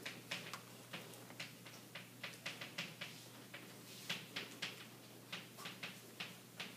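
Chalk on a chalkboard being written with: a quick, irregular run of faint ticks and short scrapes as the chalk strikes and drags across the board.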